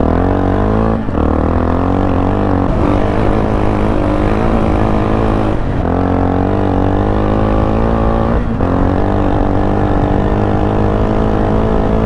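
Yamaha XT660R's 660cc single-cylinder four-stroke engine, fitted with an Akrapovič titanium exhaust, pulling under load while riding. The engine note climbs in pitch between three brief dips, about a second in, near the middle and about two-thirds through.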